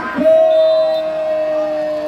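A man's voice holding one long, steady shouted note: the volleyball commentator's drawn-out call as a spike is played, with a crowd behind.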